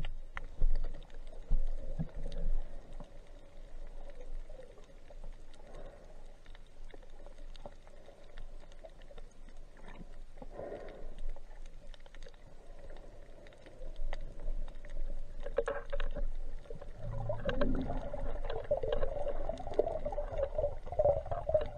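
Underwater ambience heard through a submerged camera: a muffled rush of water with a faint steady hum and scattered small clicks, the low rumble of water movement growing louder in the last third.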